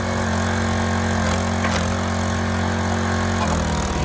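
Log splitter's engine running steadily while wood cracks and splits under the ram, with the engine note shifting slightly about three and a half seconds in.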